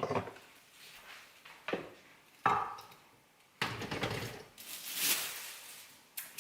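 Unpacking a new Nespresso coffee machine: several separate knocks and clunks as it and its parts are handled, with a longer rustle of packaging about four seconds in.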